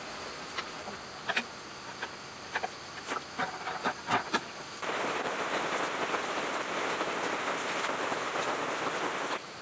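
Scattered light metallic clicks and taps as small metal fittings are pressed onto a diesel engine's sheet-metal fuel tank. About five seconds in, a steady hiss starts, then cuts off abruptly near the end.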